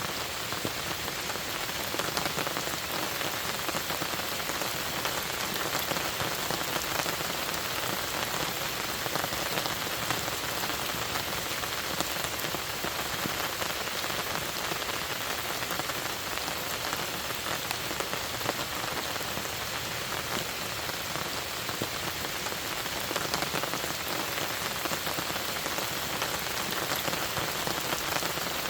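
Steady rain: an even hiss dotted with a dense patter of individual drops, holding at the same strength throughout.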